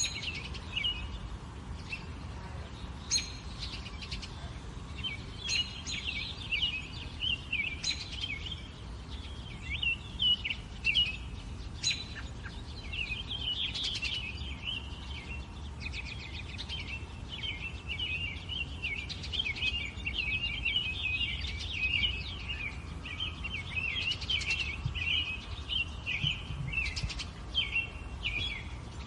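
Many small birds chirping and twittering continuously, a busy chatter of short, quick calls, over a low steady rumble.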